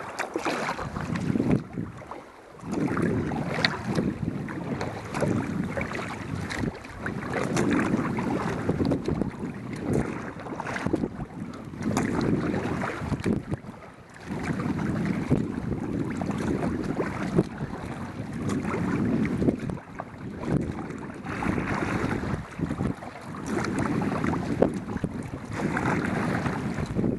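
Wind buffeting the microphone over water sounds from a kayak under way, a rough rushing noise that swells and eases every few seconds.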